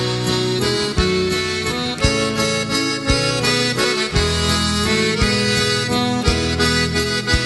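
Background instrumental music led by a sustained free-reed instrument playing a melody, with a low beat falling about once a second.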